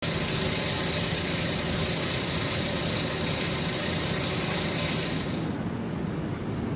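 Steady low engine hum at idle, with an even hiss and a thin steady high whine over it. About five and a half seconds in, the hiss and whine cut off while the low hum carries on.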